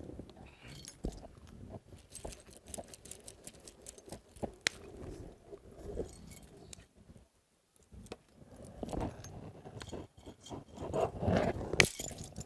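Metal bracelets and bead strings clinking and jangling as the wearer works with his hands, with many small sharp clicks and handling noises. The sound drops out for about a second past the middle.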